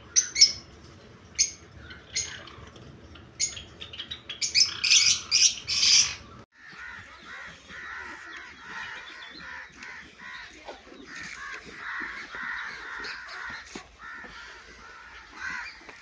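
Caged Java sparrows chirping: sharp, short calls that come thick and fast about five seconds in. The sound then cuts off suddenly and gives way to a steady, busy chatter of many birds.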